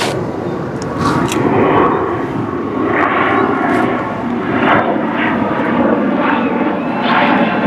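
A loud, steady engine-like drone that swells and eases slightly over several seconds.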